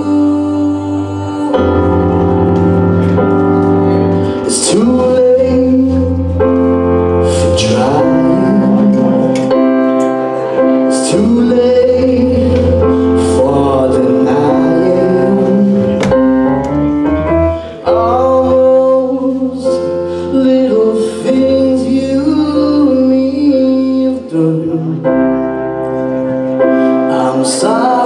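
A live band playing a song: bass guitar, electric guitar, drums with cymbal crashes and a Roland stage piano holding chords, with singing over the top.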